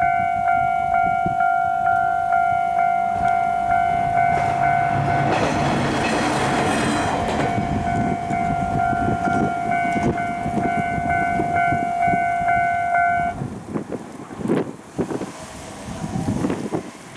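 Japanese railway level-crossing alarm ringing with its electronic two-tone bell, pulsing about twice a second, while a train rushes through the crossing a few seconds in. The alarm cuts off suddenly about 13 seconds in, followed by a few scattered knocks and rattles.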